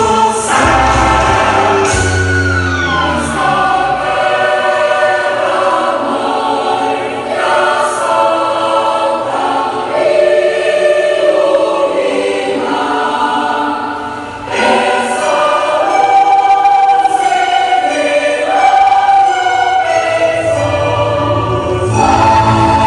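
Many voices singing together as a choir over instrumental accompaniment, loud and continuous. The deep bass drops away a few seconds in and returns strongly near the end.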